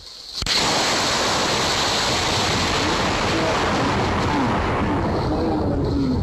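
Loud, steady rushing storm noise from a recording of lightning striking a church steeple in a thunderstorm. It starts abruptly about half a second in.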